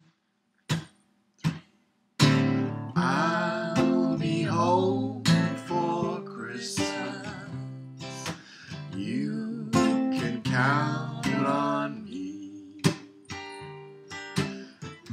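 Two sharp clicks, then from about two seconds in a strummed acoustic guitar with a voice singing a slow Christmas ballad.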